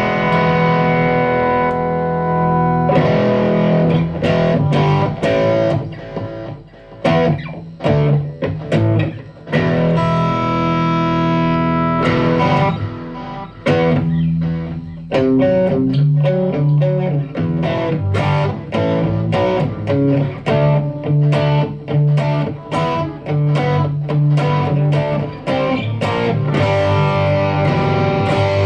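Electric guitar played through a BOSS GT-1 multi-effects processor on one of its presets, with ringing chords alternating with runs of short, choppy strokes.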